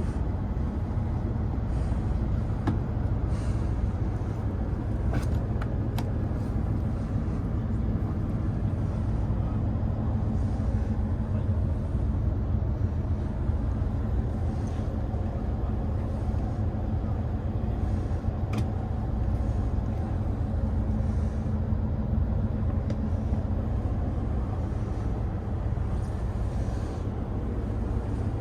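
Steady low rumble of a JR Central HC85 hybrid diesel-electric limited express train, heard from inside its passenger cabin, with a low hum through the middle and a few faint clicks.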